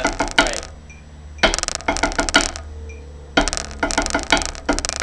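Drumsticks striking rubber practice pads laid out as a set of marching tenor drums, in four short bursts of quick triplet strokes with brief pauses between. A metronome click runs along underneath.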